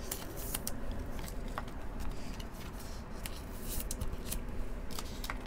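Trading cards being handled and sorted by hand: a run of light, irregular clicks and rustles as cards slide and tap against each other.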